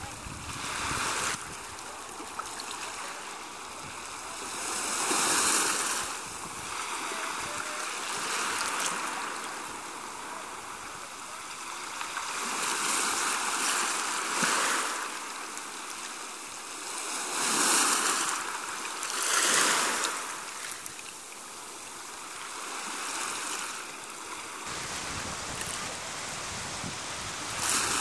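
Small waves washing onto a sandy shore, the hiss of the water swelling and falling away every few seconds.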